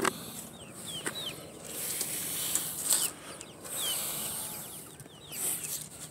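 Young chickens (black Australorp and Leghorn pullets) peeping: scattered short, high cheeps that slide downward in pitch. A stretch of rustling handling noise runs through the middle.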